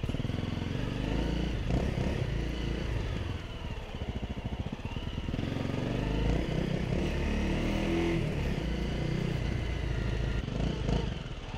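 Honda CRF250L's single-cylinder engine running as the motorcycle is ridden along a forest road, the engine note easing off about a third of the way in and picking up again past the middle.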